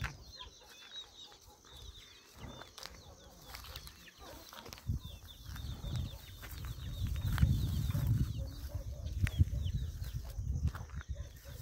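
Birds calling in quick, short chirps again and again, with a louder low rumble through the second half.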